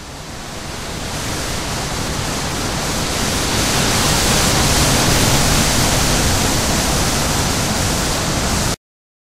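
A steady hiss of rushing noise with no tune or pitch, a title sound effect that swells in loudness over the first few seconds and then cuts off suddenly near the end.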